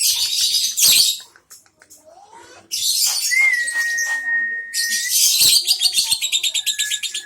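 Lovebird calling in loud, harsh, high-pitched chattering bursts. A steady high tone is held for about two seconds in the middle, and in the last two seconds the calls become a fast run of repeated chirps.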